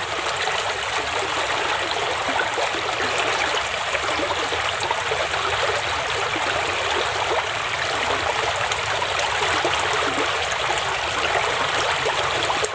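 Stream water flowing steadily past, a constant rushing and trickling.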